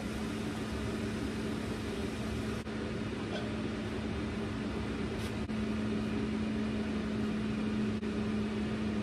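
Steady hum of a powered-up CNC vertical mill standing idle between operations, with one constant low tone, and a few faint clicks as aluminium wheel parts are handled.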